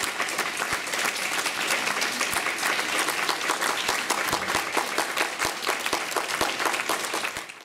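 Audience applauding, a crowd of many hands clapping steadily. The applause cuts off abruptly at the end.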